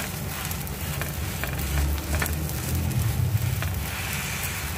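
A thin batter crepe sizzling on a flat iron griddle, a steady crackling hiss with scattered light taps and scrapes of a metal spatula. A low rumble runs underneath.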